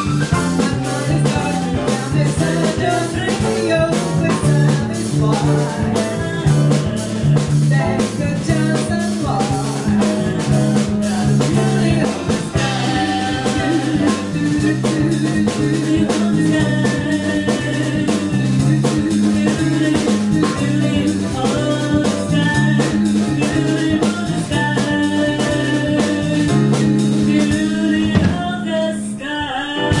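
Live jazz band of grand piano, electric bass guitar and drum kit, with vocals over a steady bass line and busy drums. The bass and drums break off briefly near the end, then come back in.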